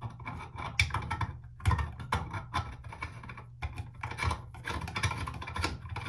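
Faucet connector for a portable washing machine being screwed by hand onto a bathroom sink spout: its threads scrape and rasp in quick irregular strokes with small clicks.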